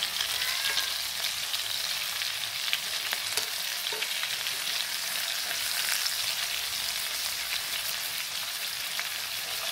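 Minced snake-meat patties frying in hot oil in a pan: a steady sizzle, with a few light clicks.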